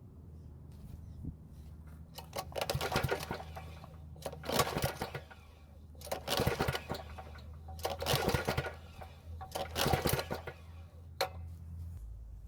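Powermate generator's small engine being pull-started five times with its recoil starter, each pull cranking the engine over with a ratcheting rattle, roughly every two seconds. It never fires even with fuel poured into the carburettor throat, and the pull is stiff, which the owner takes to mean the engine has compression.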